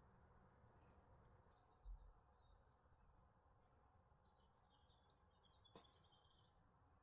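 Near silence: faint room tone with a few faint, high chirping trills, a soft low thump about two seconds in and a faint click near the end.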